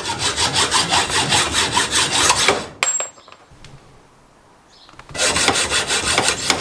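Hacksaw cutting through a mountain-bike handlebar locked in a saw guide, in fast, even back-and-forth strokes. A run of about two and a half seconds, a pause, then another run of strokes near the end.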